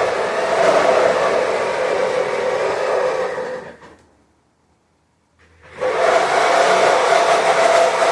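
Steady, loud whirring motor noise with a steady hum in it. It fades to dead silence a little before halfway, then comes back about a second and a half later.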